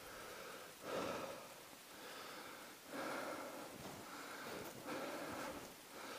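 A person breathing hard while walking, in a steady run of noisy breaths about one a second.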